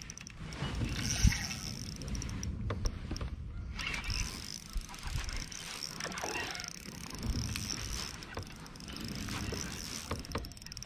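Spinning reel being cranked on a lure retrieve, with rod and kayak handling noise and a knock about a second in.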